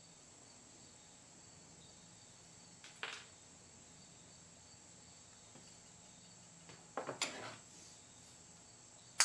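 Small metal parts and hand tools handled on a workbench: a single click about three seconds in and a short clatter of clicks near seven seconds, over a faint steady hiss.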